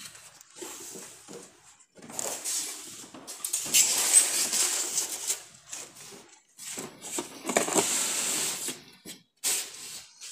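Rustling and crinkling of thin white packing wrap and cardboard box flaps being pulled and handled during unpacking. It comes in irregular bursts, loudest about four seconds in and again near eight seconds.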